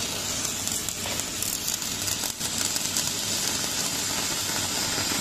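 Crackling, sizzling stick-welding arc from an EDON MMA-250S inverter welder burning a thick 8-gauge electrode, steady throughout with a brief dip about two seconds in.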